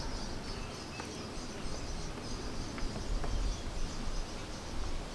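Insects chirping in a steady, pulsing high-pitched chorus, with low wind rumble on the microphone.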